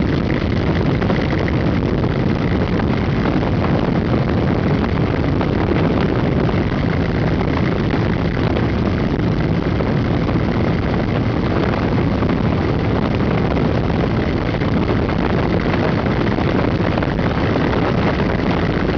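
Motorcycle engines running steadily at road speed, mixed with road and wind noise.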